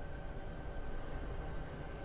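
Steady low rumble with a faint constant hum, the background noise of the kitchen, with no distinct event.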